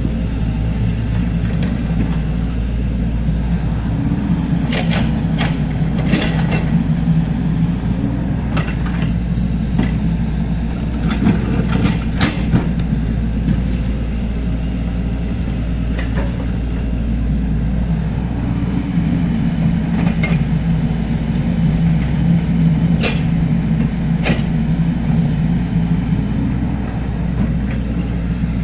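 Excavator's diesel engine running steadily while digging, with scattered sharp knocks at irregular intervals as it works.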